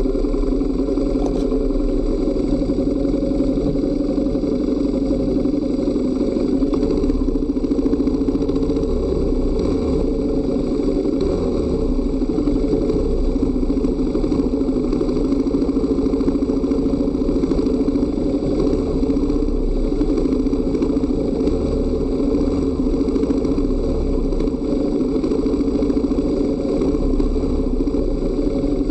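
Dual-sport motorcycle engine running steadily, with no big changes in revs.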